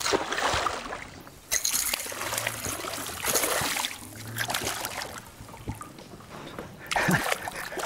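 Water splashing and trickling in irregular bursts as a hooked bass thrashes at the surface on a topwater bait close to the boat.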